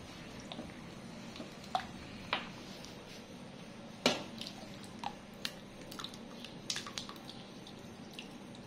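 Flour batter and hot coconut milk being stirred in a metal pot: soft wet squelching with scattered light taps and scrapes of the utensil against the pot, one louder tap about four seconds in.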